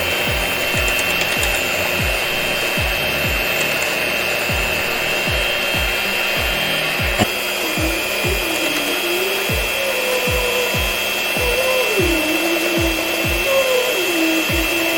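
Background hip-hop beat with deep, falling bass kicks about twice a second, and a wandering melody joining about halfway through. Underneath is a steady rasping, whirring noise.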